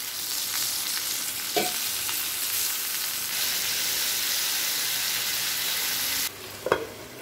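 Marinated chicken pieces sizzling steadily in a little oil in a cast-iron kadai. The sizzle cuts off suddenly near the end.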